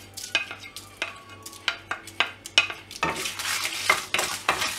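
Wooden spatula stirring whole spices (dried red chillies, coriander seeds, peppercorns, fennel seeds) dry-roasting in a kadai. Sharp taps and clicks against the pan turn to denser scraping about three seconds in.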